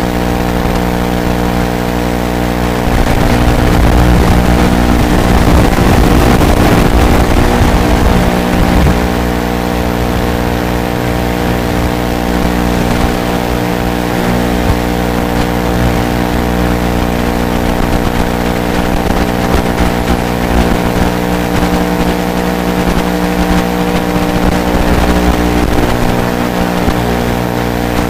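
Steady buzzing hum of a small FPV racing quadcopter in flight, heard as many fixed tones stacked together, louder and rougher for several seconds from about three seconds in.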